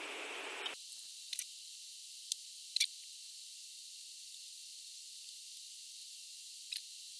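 Quiet room tone: a steady faint hiss whose lower part cuts out about a second in, with a few faint small clicks scattered through.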